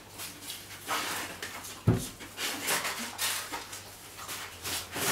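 Bull terrier panting and sniffing among torn wrapping paper, with paper rustling in short bursts and one dull thump about two seconds in.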